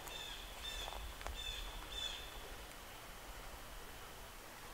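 A songbird singing faintly: about four short chirping phrases, roughly two-thirds of a second apart, over the first two seconds.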